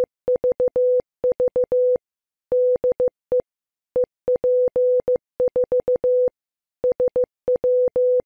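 Morse code: a single steady beep tone keyed on and off in short dots and longer dashes, in groups separated by brief pauses.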